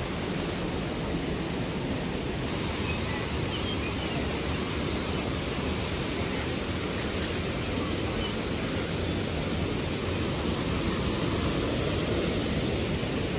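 Steady rushing of a large waterfall, Devi's Fall (Patale Chhango), its water pouring into the gorge.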